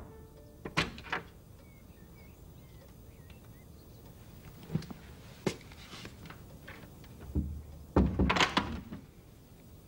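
A panelled wooden door opening with a couple of sharp latch clicks. It is then shut with a loud thump and rattle about eight seconds in, with a few soft knocks between.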